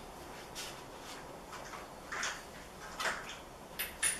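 Scattered clinks and clatters of metal hand tools being rummaged through while searching for the right socket, a few irregular knocks with a faint metallic ring near the end.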